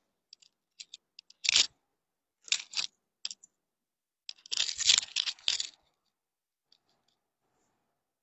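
Rustling and clicking from things being handled, in short bursts: one about a second and a half in, two close together near three seconds, and the longest from about four and a half to nearly six seconds in, then quiet.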